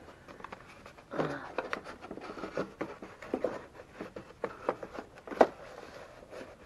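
Wooden parts being handled in a wooden telescope storage case: a run of light knocks and clicks with some scraping and rustling, and one sharper knock about five and a half seconds in.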